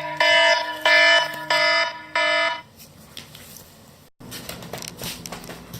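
Electronic alarm beeping: a loud chord of several pitches pulsing about every two-thirds of a second, which stops about two and a half seconds in. Low background noise and faint rustling follow.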